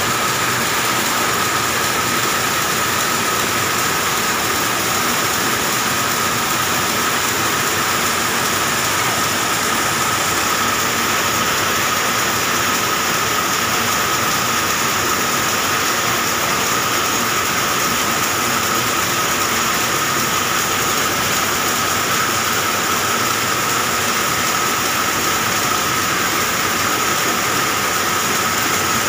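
Polyester thread-making machine running steadily, its rows of belt-driven spindles and pulleys giving a dense, even whir with a steady high whine on top.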